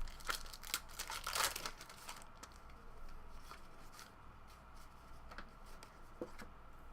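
Trading-card pack wrappers being torn and crinkled, with cards handled: scattered rustles and clicks, the loudest tear about a second and a half in, then sparser.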